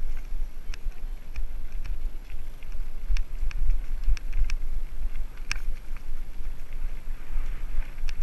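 Wind buffeting the microphone of a mountain bike riding downhill, with irregular sharp clicks and rattles from the bike on a rough trail.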